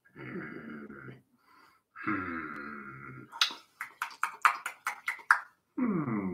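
A man's voice making growling dinosaur noises in three spells. In the middle comes a quick run of about nine sharp clicks.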